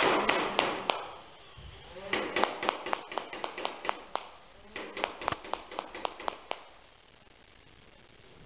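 Battery-powered Nerf blaster firing foam darts in rapid runs of sharp clicks, about five a second, in two main bursts after a few single shots. A motor whir fades out in the first second.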